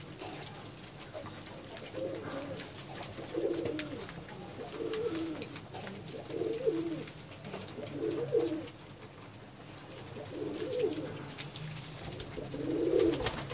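Domestic pigeons cooing: about seven low, warbling coos, one every second or two.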